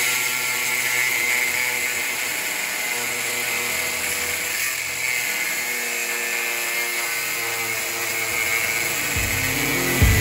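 Angle grinder with a cutoff wheel cutting through the steel driveshaft yoke clamped in a vise, a steady high grinding whine. About nine seconds in, rock music with a heavy beat comes in.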